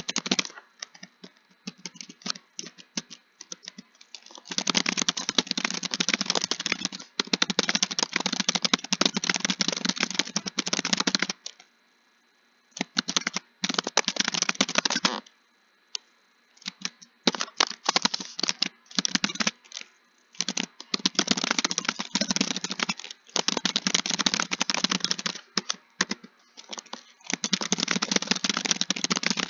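Fast typing on a computer keyboard: long runs of rapid key clicks, broken by a few brief pauses.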